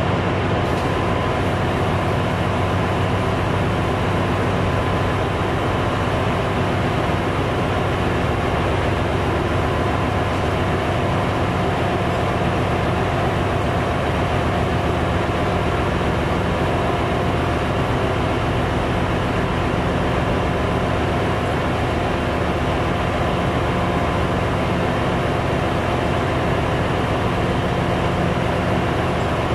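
Steady, loud drone of a ship's engine room, with several constant hums and no change throughout. It comes from the running auxiliary machinery, as the main diesel engine stands stopped with its crankcase doors open for inspection.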